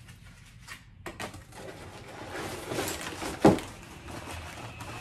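Cardboard packing and paper wrapping rustling and crinkling as vacuum parts are pulled out of their box, with one sharp knock a little past halfway.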